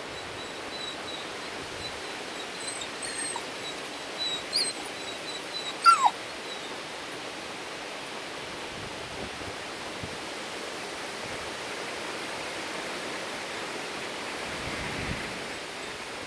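A dog whimpering: several short, high-pitched whines between about three and six seconds in, ending in a louder, falling whine. Steady wind noise runs underneath.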